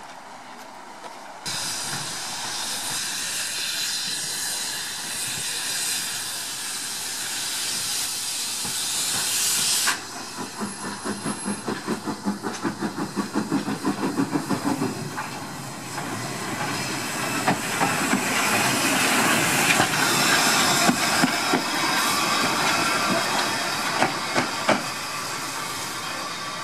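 Steam tank locomotive letting out a loud hiss of steam that starts suddenly and cuts off about ten seconds in. Then its exhaust beats quicken as it gets under way, followed by the sound of the engine running along the track with sharp clicks.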